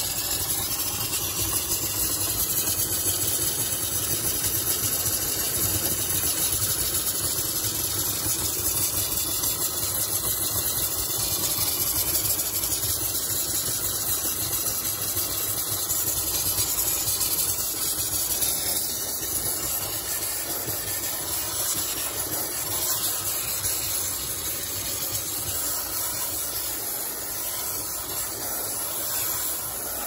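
Hot-air blower running steadily, its fan and rushing airflow aimed into a refrigerator's freezer to melt the ice blocking the evaporator coil. The noise eases slightly in the last few seconds.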